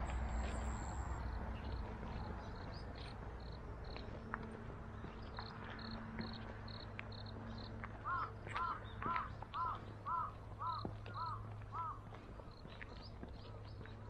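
A crow cawing eight times in a steady series, about two caws a second, starting a little past halfway. Faint high short chirps repeat throughout over a low steady rumble.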